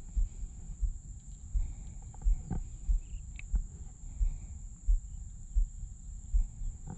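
Wind buffeting the microphone, a low rumble that comes in short gusts more than once a second, with a steady thin high-pitched tone above it.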